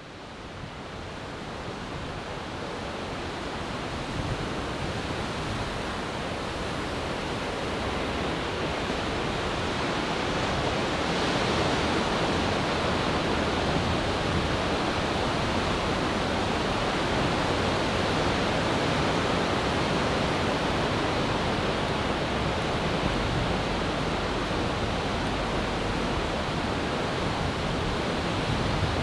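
Ocean surf: a steady wash of breaking waves and foam with no distinct single crashes. It fades in over the first several seconds, then holds level.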